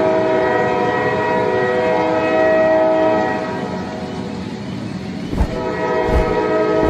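Train horn sounding a long, steady blast that fades out about three seconds in, then sounds again near the end. A few low, evenly spaced thumps come with the second blast.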